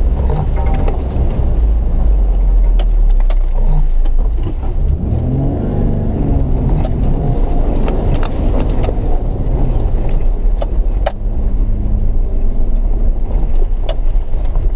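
Off-road vehicle's engine pulling slowly through a shallow stream and reed bed, its revs rising and falling, with water splashing at the start and repeated sharp clicks and scrapes as reeds brush against the body.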